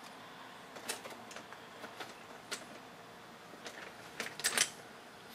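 Scattered light clicks and taps of small metal carburetor parts being handled and fitted by hand, a few irregular ticks a second with short pauses between them.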